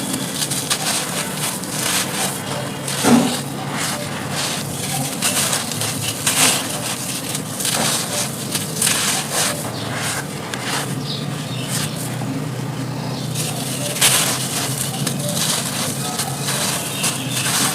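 Dry, brittle charcoal being crumbled and crushed, a steady run of crackling and crunching, with a louder crunch about three seconds in and another about fourteen seconds in.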